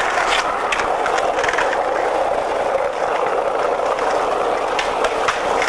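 Skateboard wheels rolling steadily over street asphalt, with scattered sharp clicks and knocks from the board.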